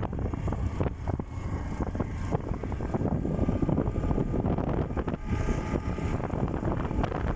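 Wind buffeting the microphone of a moving two-wheeler, an uneven low rumble, with the bike's engine running underneath.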